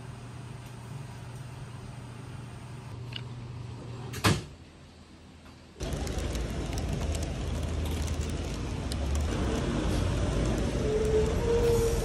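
A low, steady room hum with a sharp click about four seconds in, then, from about six seconds on, louder city street noise with road traffic going by and a plastic carrier bag rustling in the hand.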